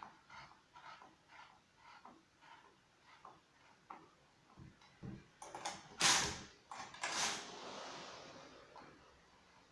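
Handling noises: a run of soft, evenly spaced rustles, about two a second, then two louder sliding, scraping sounds about six and seven seconds in, the second trailing off.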